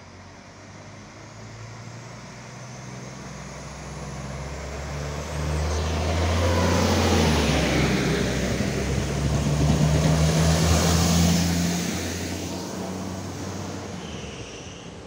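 Koleje Lubuskie SA139 diesel multiple unit passing through the station without stopping. Its engine hum and the rumble of wheels on rail build up over the first six seconds and stay loudest for about six seconds as the cars go by. The sound then fades as the train pulls away.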